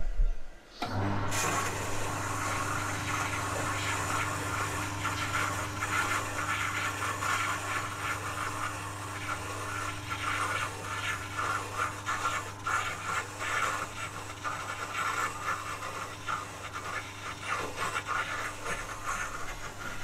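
An electric ejector (jet) water pump kicks in about a second in and runs steadily with a constant low hum and a loud busy noise, pumping water as the dishwasher draws in its fill water. A short burst of noise comes just before it starts.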